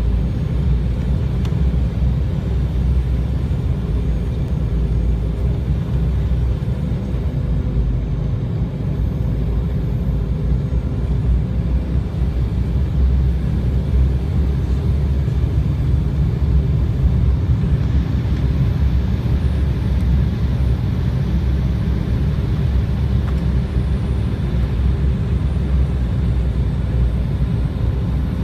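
Steady low-pitched cabin noise inside an Embraer 195 airliner descending on approach: the rumble of its engines and the airflow, with a faint steady hum over it.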